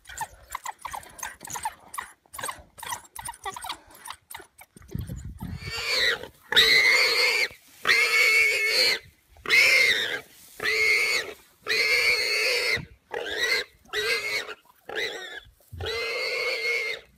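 An animal caught by a pack of African wild dogs crying in distress: after a flurry of short clicks and chirps, about ten loud, drawn-out cries of steady pitch come roughly one a second from about six seconds in.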